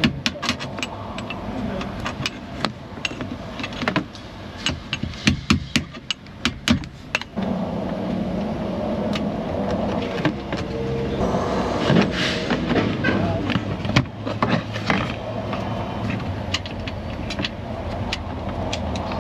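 Hammer and chisel tapping on the breakaway (snap-off) screws of a steering lock module, trying to turn them loose: runs of sharp, irregular metal taps. About seven seconds in, a steady background noise comes up beneath the taps, which carry on more sparsely.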